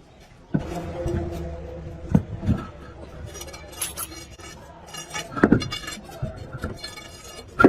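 Metal tools and parts clinking and being set down, with several sharp knocks and short metallic rings.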